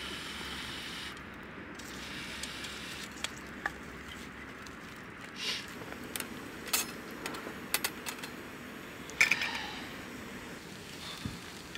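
Camp cooking gear being handled: light metallic clicks and clinks, a cluster of sharper ones about nine seconds in, over a faint steady hiss.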